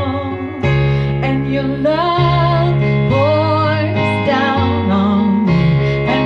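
Music: a woman singing a slow worship song with vibrato over sustained keyboard chords.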